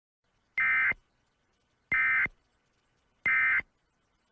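Three short bursts of EAS SAME digital data tones, the End of Message (NNNN) code that closes an Emergency Alert System message. Each burst is a fraction of a second of buzzy two-tone data, and they are about a second apart.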